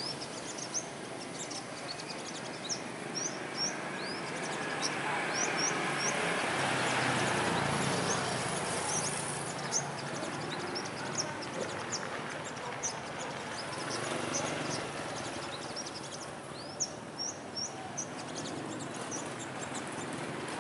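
Sunbirds calling: quick, thin, high chirps repeated irregularly throughout, some in short runs. Underneath is a steady background rush that swells for a few seconds about a third of the way in and then eases.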